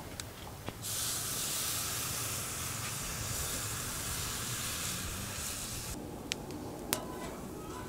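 Beef steak sizzling loudly on a hot, freshly oiled charcoal grill grate. The sizzle starts suddenly about a second in as the meat goes down and cuts off sharply about six seconds in. Two sharp clicks follow near the end.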